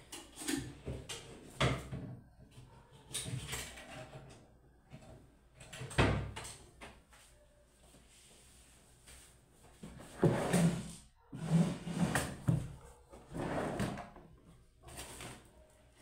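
Someone rummaging for an item: drawers or cupboard doors opening and shutting, with irregular knocks and clatter of things being moved, busiest near the middle and end.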